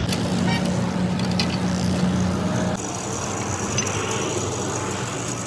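Heavy machinery running with a steady hum, with a few clicks in the first couple of seconds; the sound changes abruptly to a rougher, noisier running about halfway through.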